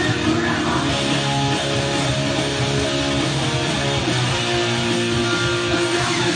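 Electric guitar being strummed, playing a continuous run of chords and notes.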